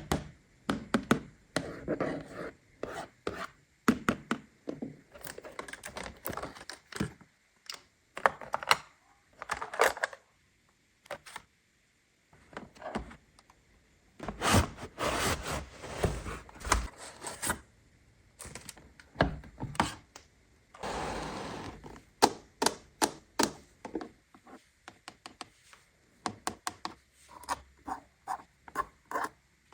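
Hands unboxing a plastic toy playset: a steady run of sharp plastic clicks and taps as pieces are handled and set down, with two longer stretches of rustling packaging, one in the middle and one about two-thirds through.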